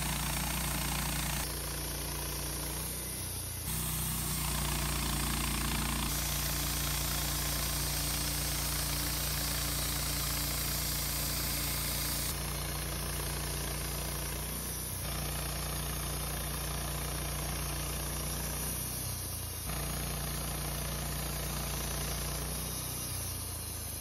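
Woodmizer LT15 portable bandsaw mill running steadily. The sound shifts abruptly several times and eases off near the end.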